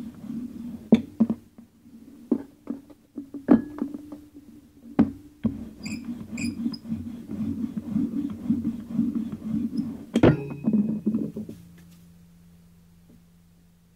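A low, indistinct voice with a few sharp knocks. Both stop about three quarters of the way through, leaving a faint steady hum.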